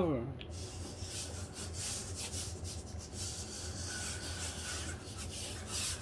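Quadruped robot dog's servo-driven legs working to right it after a fall: a series of short scrapes and scuffs as its feet and body rub on the rubber floor mat, with a faint servo whine about four seconds in.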